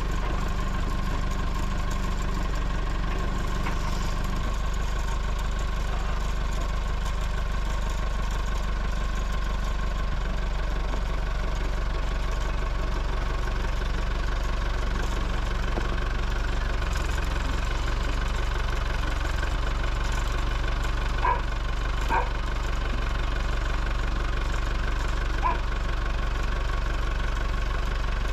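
Wheeled loader's diesel engine running steadily at a low idle while the machine works with its forks. A few light knocks sound in the last third.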